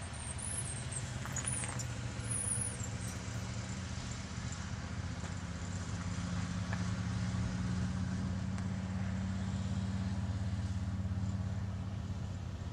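Motor vehicle engine running with a steady low drone that builds gradually and is loudest in the last few seconds. A few faint high whistles in the first few seconds.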